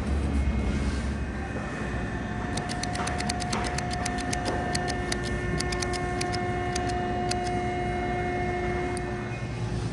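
Hand-held chrome tally counter clicked over and over in quick runs, several clicks a second, starting a couple of seconds in. Steady humming tones run beneath it, after a low rumble in the first second.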